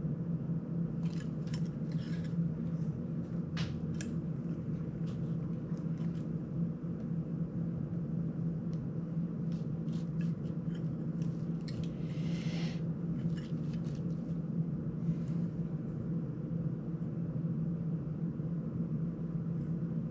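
Small plastic clicks and taps as a ducted FPV drone frame and its parts are handled by hand, coming in two scattered clusters, with a brief scraping rustle about twelve seconds in. A steady low hum runs underneath.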